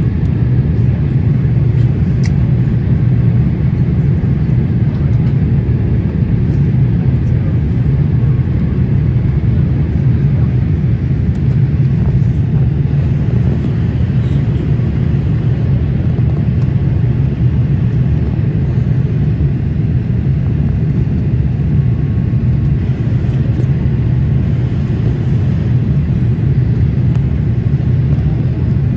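Steady cabin noise inside a jet airliner descending to land: a constant low rumble of the engines and airflow past the fuselage, with an even hiss above it.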